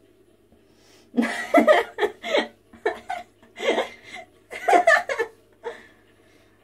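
A person laughing in a string of short bursts, starting about a second in and lasting about four and a half seconds.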